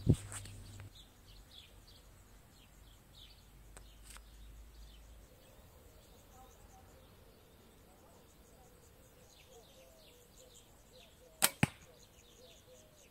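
An arrow is shot from a homemade bow of about 30-pound draw weight, made from a modified kid's bow: two sharp cracks about a fifth of a second apart, near the end. Faint bird chirps can be heard before it.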